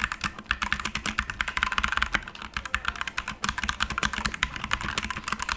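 Fast typing on a Digital Alliance Meca Air mechanical keyboard with red switches: a dense, continuous clatter of keystrokes, many clicks a second.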